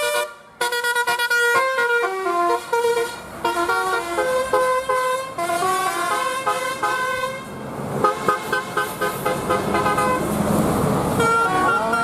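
Bus 'telolet' multi-trumpet horn playing a melody of quickly changing horn notes; in the later seconds the notes come as rapid short stabs over a louder rushing noise.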